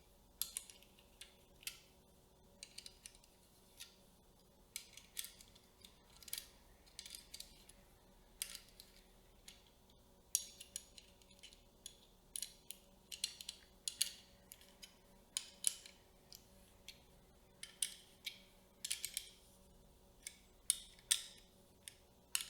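Close-up handling of cinema camera rigging parts: irregular light clicks, snaps and small scrapes of metal and plastic pieces being fitted together, sometimes several in quick succession.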